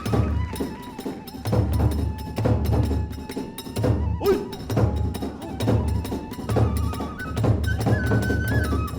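Kagura festival music: a big drum beating about once a second, a bamboo flute holding a stepping melody, and small hand cymbals clashing rapidly.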